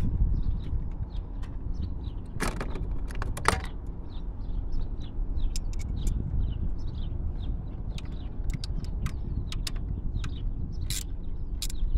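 Screwdriver tightening the small mounting screws of an ignition control module inside a distributor: scattered small metallic clicks and scrapes, with a louder cluster about two and a half to three and a half seconds in and another near the end, over a steady low rumble.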